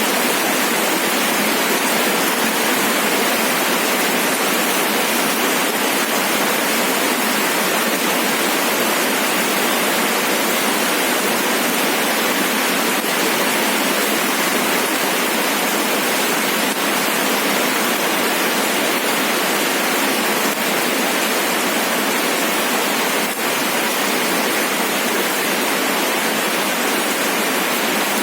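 Steady rain, an even, unbroken hiss with no separate drops or thunder standing out.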